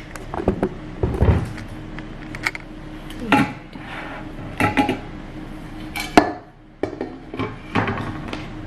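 Cutlery clinking and scraping against plates and dishes in an irregular run of short clicks and knocks, the sharpest one about six seconds in.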